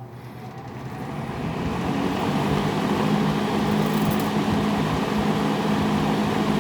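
1971 JCPenney Pencrest 50 (Lakewood S-21) metal-bladed box fan spinning up to high speed. The rush of air builds over the first two seconds or so, then the fan runs steadily with a low hum.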